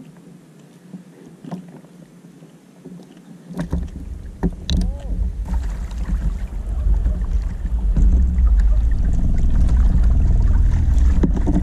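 Wind rumbling on the camera microphone, with water washing against a kayak hull as it moves. It starts about a third of the way in with a few clicks and knocks, then grows louder and turns steady.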